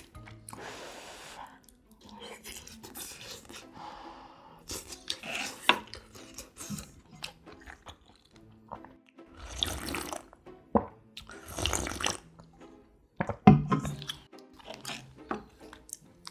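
Slurping cold broth with acorn jelly from a stainless steel bowl: several long noisy slurps with small wet clicks of chewing between them. A sharp knock comes about thirteen seconds in.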